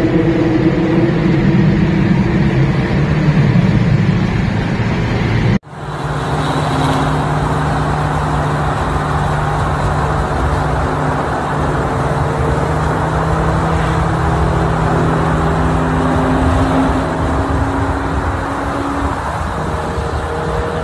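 Car engine and road noise while driving at speed. About five and a half seconds in, the sound cuts abruptly to a different clip, where a steady low engine hum with tyre noise goes on and rises slightly in pitch near the end.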